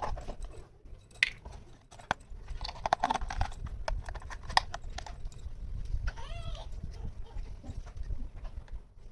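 Small plastic toy pieces clicking and tapping as they are handled and set down, with a brief wavering squeak a little after six seconds.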